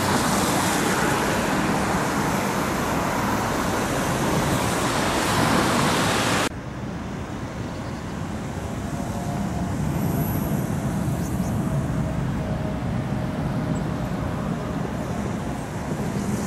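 Outdoor traffic noise beside tram tracks: a loud, even rushing that drops suddenly about six seconds in. After the drop, a quieter low rumble remains, with faint high whining tones.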